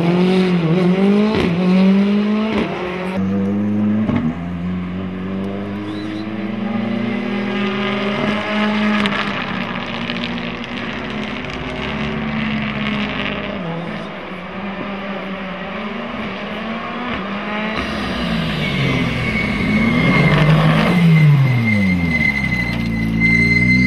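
Ford Fiesta rally car's engine revving hard through the course, its pitch climbing and dropping repeatedly through gear changes and lifts. A thin, steady high whine joins in during the last few seconds.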